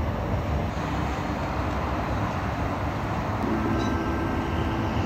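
Steady city traffic noise, a low, even rumble of vehicles, with a faint hum joining about three and a half seconds in.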